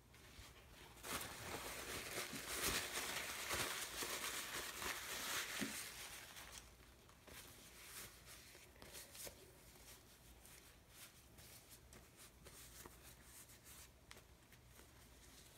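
Rustling and crinkling, like paper being handled, for about five seconds, then faint scattered clicks and ticks.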